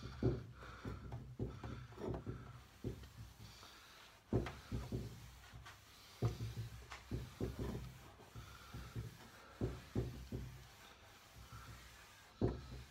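0000-grade steel wool rubbed back and forth over a waxed pine tabletop, working the wax in: irregular scrubbing strokes with dull knocks as the hand presses on the wood.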